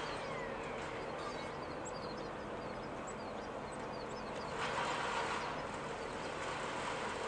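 Hot water running steadily from an outdoor wall faucet in a thin stream, getting a little louder about halfway through.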